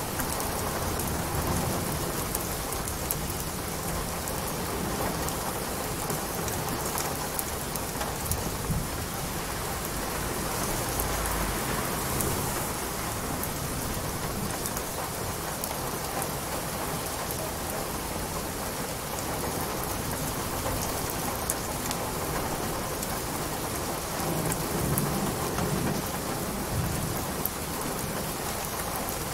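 Steady rain falling and pattering, with a low rumble swelling now and then, strongest near the end.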